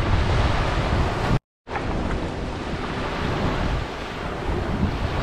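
Gentle sea waves washing onto a sandy beach, with wind rumbling on the microphone. The sound cuts out completely for a split second about a second and a half in, then carries on.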